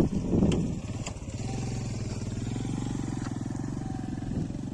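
Motorcycle engine running steadily at a constant pace, after a couple of sharp clicks and a brief louder rush in the first second or so.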